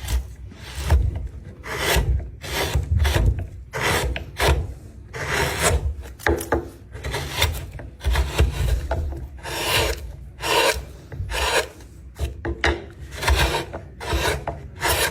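Wood being scraped by hand with an abrasive tool, in repeated back-and-forth strokes a little more than once a second.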